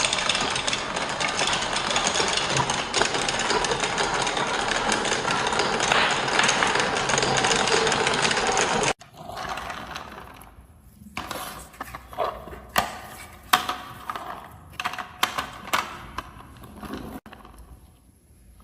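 Marbles rolling and clattering down a marble run: a dense, continuous rattle of many marbles for about nine seconds, then, after a sudden cut, quieter rolling with scattered sharp clicks and knocks of single marbles hitting track pieces.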